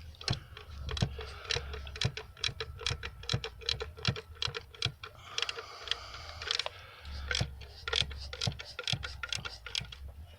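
Ice pellets (sleet) ticking down: light, sharp, irregular ticks, several a second.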